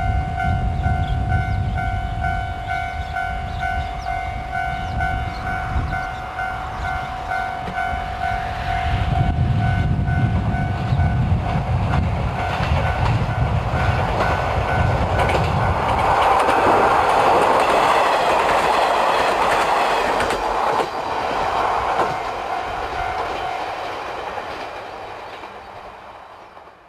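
Two-car KiHa 40 diesel railcar set approaching and passing: its diesel engines and wheels on the rails build from about a third of the way in, are loudest a little past halfway, then fade away. A steady pulsing ringing tone sounds alongside until near the end.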